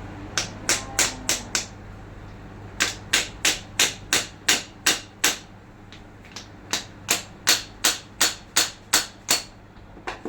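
Hammer tapping on the forklift steering cylinder's parts during seal fitting, in three runs of quick, even strikes at about three a second.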